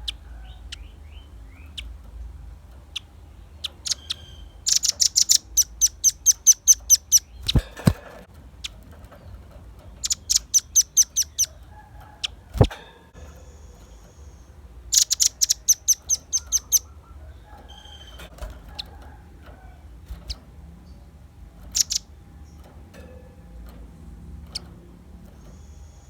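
Velvet-fronted nuthatch calling: three bursts of rapid, very high, sharp chips, each lasting about two seconds, with scattered single notes between them. Two loud knocks come about eight and thirteen seconds in.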